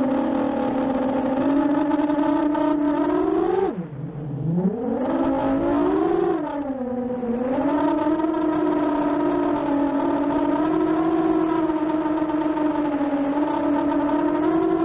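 7-inch FPV racing quadcopter's brushless motors and propellers whining, heard on the drone's own camera audio. The pitch holds steady except where the throttle is chopped about four seconds in: the whine drops sharply and goes quieter, then spools back up. A smaller dip and recovery follows a couple of seconds later.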